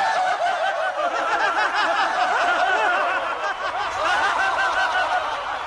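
Laugh track added in the edit: many voices laughing and snickering together in a dense, overlapping layer, starting to fade near the end.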